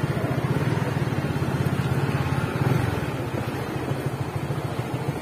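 Motorcycle engine running at low revs with a steady, even low pulse as the bike rolls slowly.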